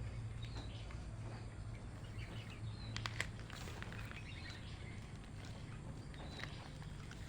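Young common flameback woodpecker giving faint, short high chirps, with a few quick taps about three seconds in, over a steady low hum.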